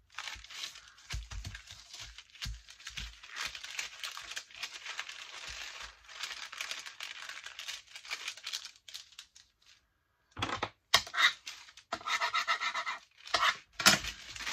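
A sheet of brown baking paper being folded, creased and crumpled by hand: steady rustling, a short pause about ten seconds in, then louder, sharper crinkles and crackles.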